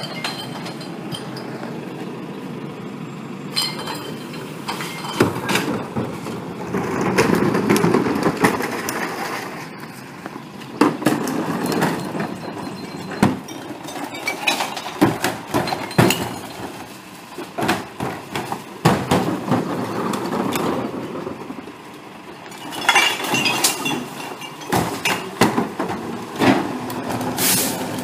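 Recyclables crashing and clinking as blue carts are tipped into the hopper of a CNG-powered Mack/McNeilus rear-loader garbage truck, with glass clinking and many sharp knocks. The truck runs steadily underneath.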